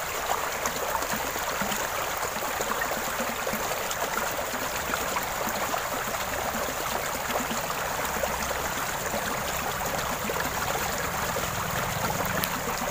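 Shallow stream water rushing and splashing steadily around a paddle-wheel water turbine.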